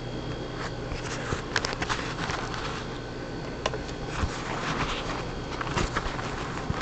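Camera handling noise: rustling and scattered small clicks and knocks as the camera is picked up and moved.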